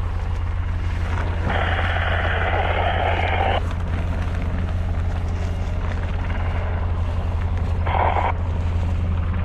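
Military helicopter running with a steady low drone. It is broken twice by hissing bursts of two-way radio static: a long one of about two seconds starting a second and a half in, and a short one near the end, as the radio is keyed while the team tries to raise the aircrew.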